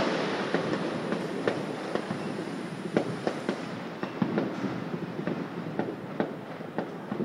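Distant fireworks and firecrackers going off, irregular sharp cracks and pops over a rolling rumble that slowly fades.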